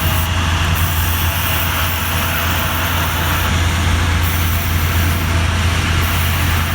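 A large engine running steadily: a constant low hum under an even hiss, with no change in speed.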